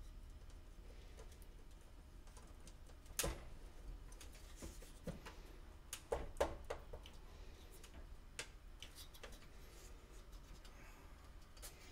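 Scattered light clicks and taps of thin laser-cut wooden parts being handled and pushed together during assembly. The clearest knock comes about three seconds in, with a small cluster around six seconds.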